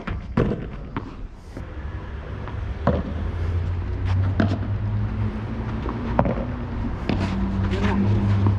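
A padel rally: rackets striking the ball and the ball bouncing, sharp knocks every second or two, about six in all. Beneath them a motor vehicle's engine hums low and steady, swelling around the middle and again near the end.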